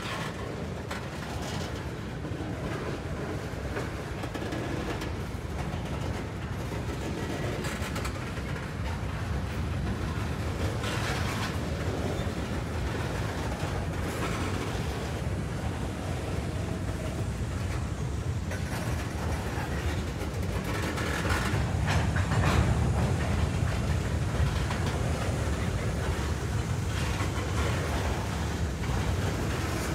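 Loaded freight tank cars rolling past at close range: a steady low rumble of steel wheels on rail, with scattered clicks and clacks as the wheel sets cross rail joints. It gets somewhat louder a little after the middle.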